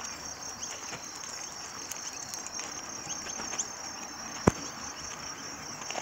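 A steady, high insect trill with scattered short chirps from a flock of birds. A single sharp knock comes about four and a half seconds in.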